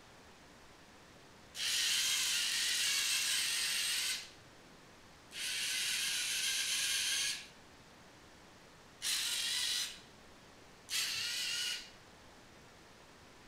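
Lego Mindstorms NXT servo motors whirring through their plastic gears in four separate runs, each set off by a button tap on the controlling phone: two runs of about two seconds, then two short ones of under a second.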